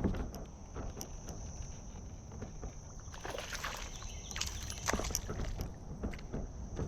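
Scattered knocks and water splashes from a kayak while a hooked bass is fought on a fishing rod, most of them between about three and five seconds in. Over them runs a steady high insect drone.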